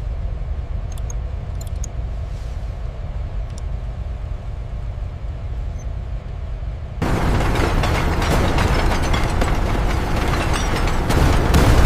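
Heavy factory machinery: a steady low rumble with a few faint clicks, then about seven seconds in a loud, even roar of noise starts abruptly and keeps going.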